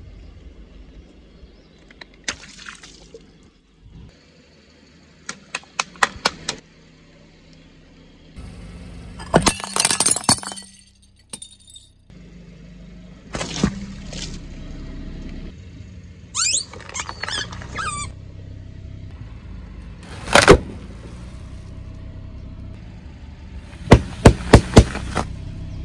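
A car's tyres crushing objects on asphalt, with a car engine running low underneath. Sharp cracks and crunches come every few seconds, some as quick runs of several cracks, the loudest near the end, and among them a ceramic plate shattering.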